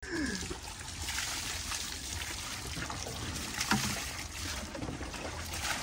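Water running and splashing steadily as someone washes their hands and feet.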